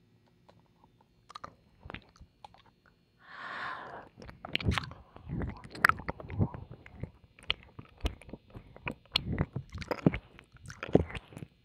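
Ear-licking ASMR mouth sounds close to the left ear of the microphone: wet licks, kisses and tongue clicks. A few sparse clicks at first, a breathy exhale about three seconds in, then a close, steady run of wet clicks and smacks.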